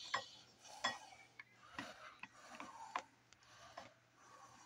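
Metal utensil lightly tapping and scraping against a small bowl in a series of irregular clicks while beaten egg yolks are mixed with a spoonful of hot pie filling to temper them.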